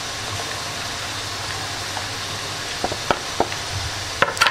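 Steady hiss with a few light clicks and taps from chopped onion and a ceramic bowl being handled, the clicks coming about three seconds in and again near the end.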